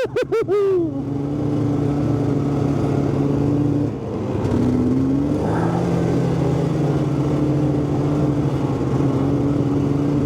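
Snowmobile engine running at steady speed on a trail. Its pitch swings up and down a few times in the first second, then holds steady, with a brief dip and a slight rise about four seconds in.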